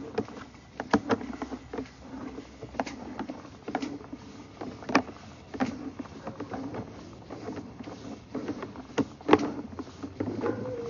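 Sewer inspection camera being pushed along a PVC sewer line: irregular clicks and knocks as the camera head and push rod bump through the pipe, over a steady low hum.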